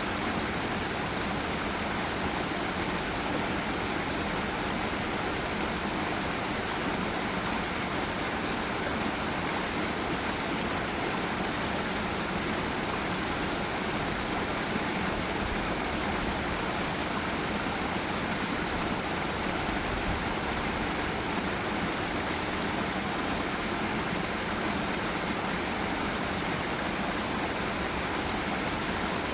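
Water rushing steadily over a forest waterfall on a river: an even, unbroken noise with no changes.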